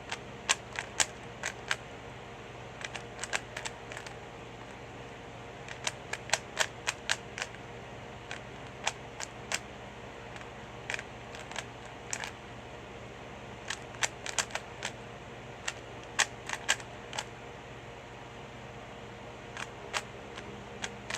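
3x3 Rubik's cube being turned fast by hand. Its plastic layers click sharply in quick bursts, with short pauses between the bursts.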